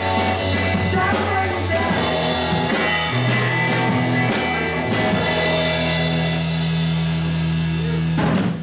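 Live rock band (drum kit, electric guitars and bass) playing the closing bars of a song, ending on a final hit just before the end.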